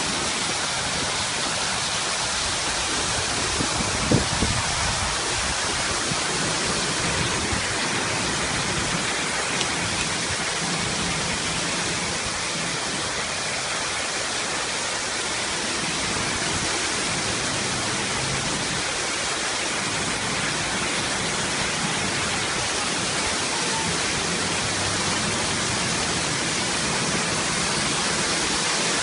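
Steady rushing of a waterfall, with one brief knock about four seconds in.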